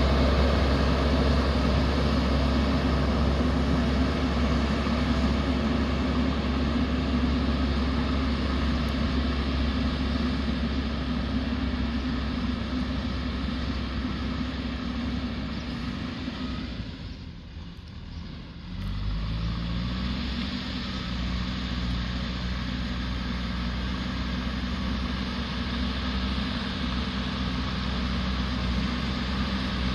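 JCB backhoe loader's diesel engine running steadily. It drops away a little past halfway, then picks up again with a quick rise in pitch and runs on steadily.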